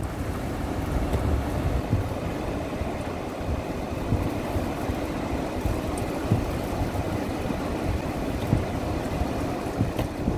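Steady low rumble heard from inside a car as strong storm winds buffet it.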